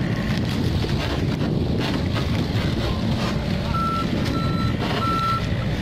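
Komatsu PC45MR mini excavator's diesel engine running steadily under load while it digs and swings, with scattered knocks of soil and bucket. Near the end its travel alarm gives three short, high beeps as the machine starts to move.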